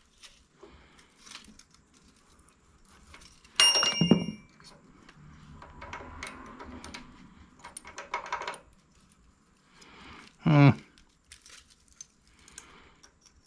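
Hand tools and small metal parts being handled at an engine. About four seconds in there is one sharp metallic clink that rings briefly, followed by scattered small clicks and rattles. Near the end there is a short grunt.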